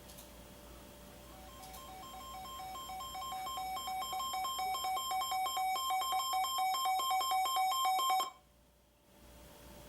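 Weather alert radio's alarm going off: a rapid two-tone electronic warble that grows steadily louder for about seven seconds, then cuts off abruptly, signalling an incoming warning.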